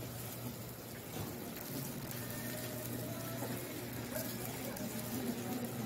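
Traditional market ambience: a steady background hum and hiss with faint, indistinct voices.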